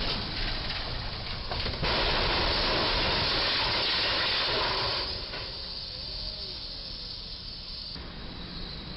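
Box moving truck hitting a low railroad bridge's overhead beam: a sudden loud, even rush of scraping noise about two seconds in, lasting about three seconds as the box body's roof is torn open. It then falls back to quieter background noise.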